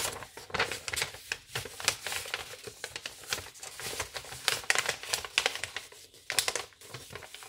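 A sheet of plain white paper rustling and crinkling as it is folded and creased by hand, in quick irregular crackles.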